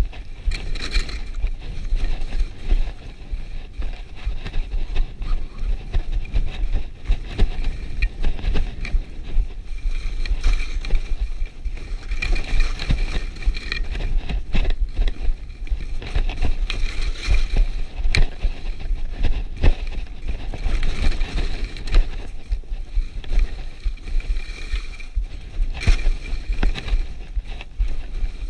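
Skis scraping and hissing over packed snow on a downhill run, with wind buffeting the microphone in a low, uneven rumble.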